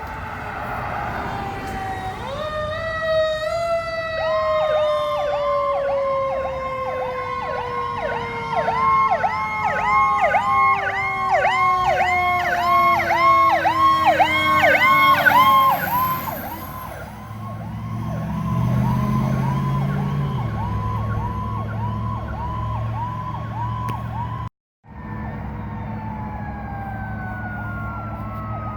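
Fire truck sirens on an emergency response: a siren yelping rapidly, about two up-and-down cycles a second, over a second siren tone winding slowly down in pitch. A deeper steady tone joins for a few seconds in the middle, and the sound cuts out briefly near the end.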